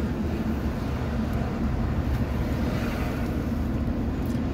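Steady road and engine rumble heard inside the cabin of a car driving slowly in city traffic.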